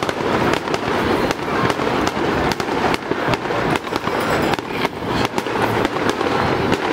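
A rapid barrage of aerial fireworks bursting in quick succession: a dense, unbroken run of many overlapping bangs and crackles.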